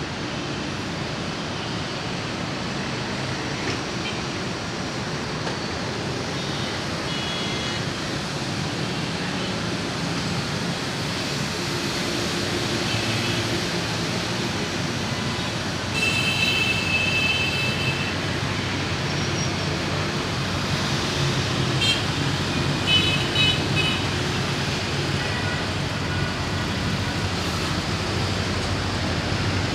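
EMD diesel-electric locomotive running light, its engine rumble slowly growing louder as it approaches, mixed with steady road-traffic noise. Short horn blasts sound about halfway through and again a few seconds later.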